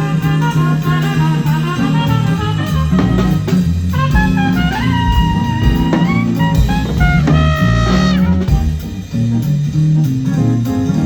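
Live band playing an instrumental groove: drum kit and bass under a melodic lead line that slides between notes partway through.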